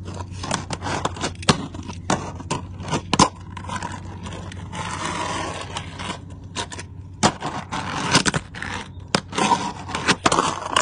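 Fingerboard riding and doing tricks on an ice chest lid: irregular sharp clacks of the small board popping and landing, with the scrape and roll of its wheels between them.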